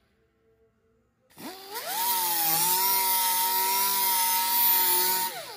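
Pneumatic cut-off tool with a small abrasive disc spinning up about a second in, running at a steady high whine with a hiss of air, as it trims the metal edge of a motorcycle fender. It spins down near the end.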